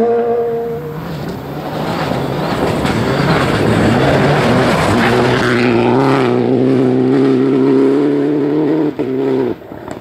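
Rally car engines at full throttle on a gravel special stage, with loose gravel noise heavy in the middle of the passage. The engine note holds steady and high, then cuts off abruptly near the end.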